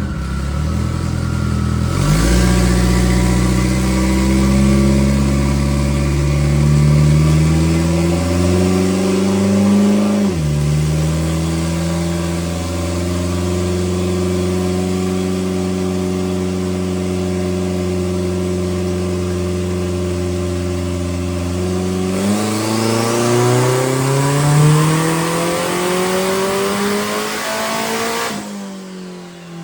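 Race car engine running on a chassis dyno, its pitch climbing steadily under load, dropping sharply about a third of the way in, holding steady for a stretch, then climbing again before falling away near the end.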